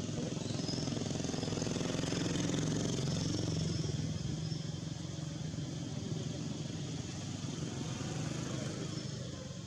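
A motor vehicle engine running steadily, growing louder about two to three seconds in and then slowly fading.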